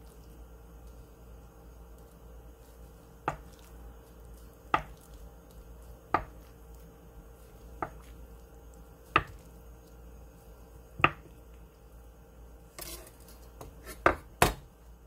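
Chef's knife slicing down through a block of tofu and tapping the wooden cutting board, six single knocks about every second and a half, then a few louder knocks near the end.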